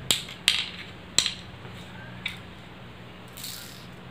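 Cowrie shells dropped one at a time into the hollows of a wooden pallankuzhi board: three sharp clicks within the first second or so, a fainter one a second later, then a brief soft rustle near the end.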